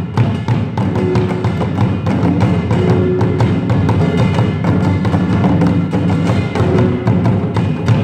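Samulnori ensemble: janggu hourglass drums and buk barrel drums beaten together in a fast, dense, unbroken rhythm, with the metallic clang of the small kkwaenggwari gong over them.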